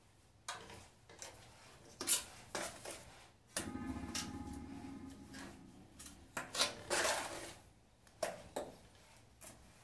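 Steel trowel scraping and clacking against a plastic bucket and the tile floor while scooping and spreading mortar: an irregular run of sharp knocks and longer scrapes.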